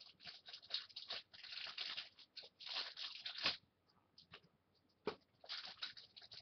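Plastic toy packaging being torn and crinkled open by hand: a struggle with the package, in rustling bursts that pause about two-thirds through, with a sharp click about five seconds in.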